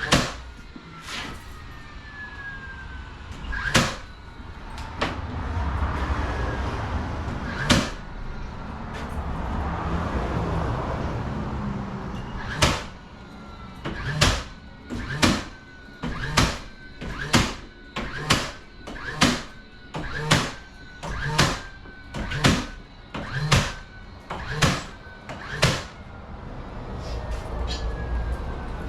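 Sharp knocks, a few scattered at first and then a steady run of about one a second, over a steady background noise.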